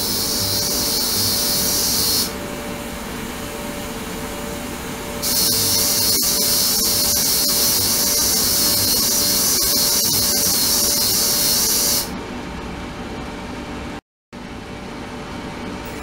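Ultrasonic cleaning tank running, a loud high hiss from cavitation in the water that stops about two seconds in, comes back about five seconds in and cuts off about twelve seconds in. A steady low hum lies underneath.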